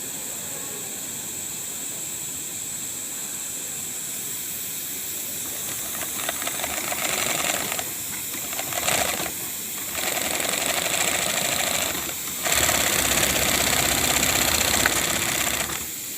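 Kansai multi-needle waistband sewing machine running a test seam in several short runs over a steady hiss. The runs start about six seconds in, and the last and longest is the loudest.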